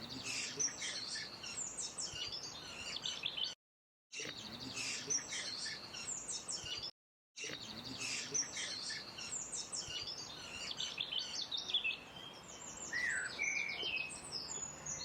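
Several birds singing and chirping together in a dense chorus of quick high trills and calls. The sound cuts out completely for about half a second twice, a little under 4 seconds in and again about 7 seconds in.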